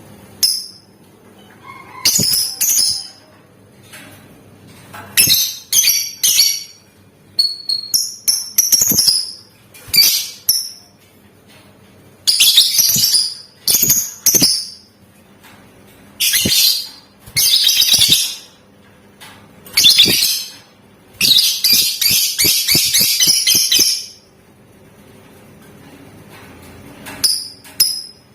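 Lovebird calling in repeated bursts of sharp, high-pitched chirps separated by short pauses. About three-quarters of the way through comes a longer rapid trill of about three seconds, the long 'ngekek' call.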